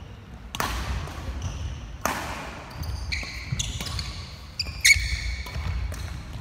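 Badminton rally in a sports hall: sharp racket strikes on the shuttlecock, about half a second and two seconds in, then a run of sneakers squeaking on the wooden court floor, loudest near five seconds.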